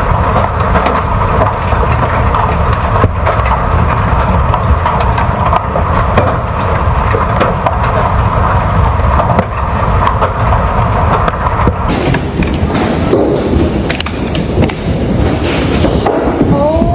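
Large hailstones pounding down, a dense, loud clatter of many hard impacts on vehicles and the ground. The recording changes about twelve seconds in, and the clatter goes on.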